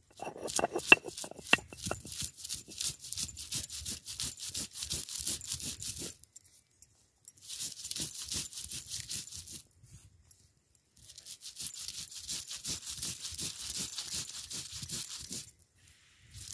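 Stone roller (varvanta) grinding dried coconut and garlic on a flat grinding stone (pata): quick back-and-forth strokes of stone scraping and knocking on stone. The grinding comes in three spells with short pauses between.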